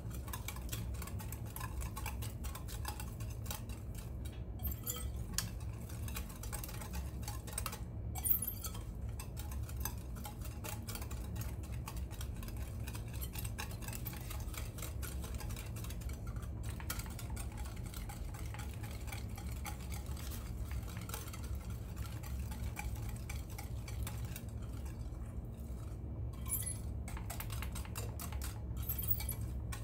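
Wire whisk beating a runny cake batter in a glass mixing bowl by hand: a steady run of quick clinks and scrapes against the glass, over a steady low hum.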